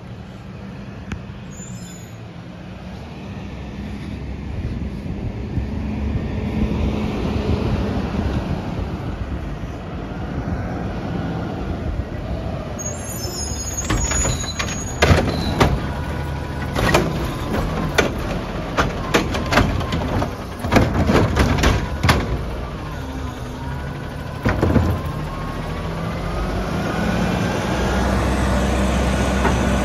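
Front-loading garbage truck with an automated cart arm: the diesel engine grows louder as it pulls up, stops with a short air-brake hiss, then a run of sharp metal clanks as the arm grabs and handles the recycling cart. Near the end a rising hydraulic whine and heavier engine revving as the arm lifts the cart overhead to tip it.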